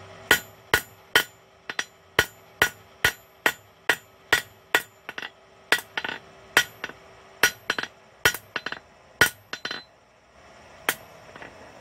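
Hand hammer striking hot quarter-inch steel bar on an anvil, the flat face of the hammer flattening the hooked end of a forged hairpin. Steady blows with a metallic ring, about two to three a second, stop about ten seconds in, and one more blow follows.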